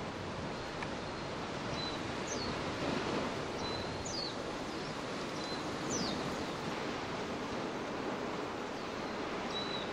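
Steady rushing roar of an erupting lava fissure fountaining. Short, high, falling chirps from a small animal sound over it every second or two.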